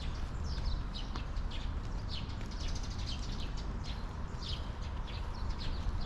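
Small birds chirping, many short quick notes in a busy run, over a steady low background rumble.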